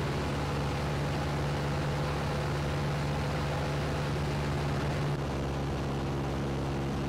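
Steady low mechanical hum made of several even tones under a constant hiss, with no sudden blast; the hum drops slightly a little after five seconds in.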